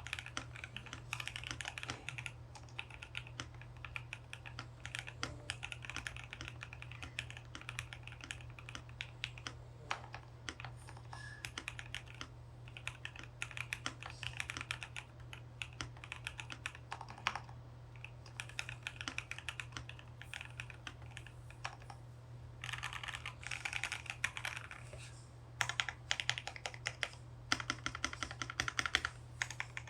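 Typing on a KBD67 Lite R1 mechanical keyboard fitted with 78 g Seal linear switches, lubed with Krytox 205g0 and filmed. A steady run of keystrokes, with faster flurries of rapid typing in the second half. A steady low hum runs underneath.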